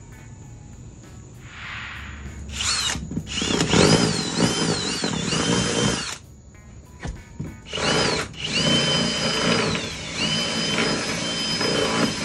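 Cordless drill boring holes into a trailer's plywood floor, in two runs of a few seconds each with a short pause between. The motor's whine rises and dips as the bit cuts.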